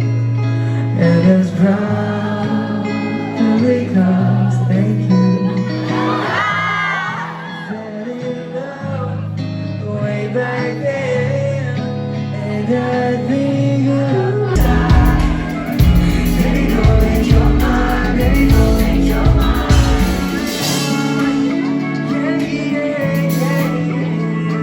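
Background pop music with a sung vocal; the bass and drums come in fuller about two-thirds of the way through.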